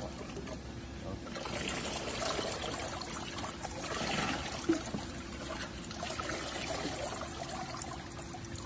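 Water sloshing and trickling in a shallow plastic tub as a pig standing in it is bathed. It starts about a second in and eases off near the end.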